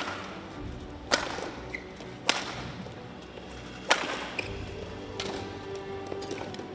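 Badminton racket strings striking the shuttlecock in a rally: four sharp smacks a second or so apart, followed by a few lighter ticks near the end.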